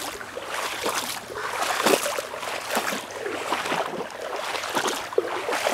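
Legs wading through shallow, cold creek water: irregular splashing and sloshing with each step, about one or two strides a second.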